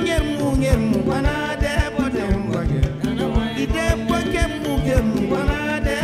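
Background music: a song with a singing voice over a steady beat.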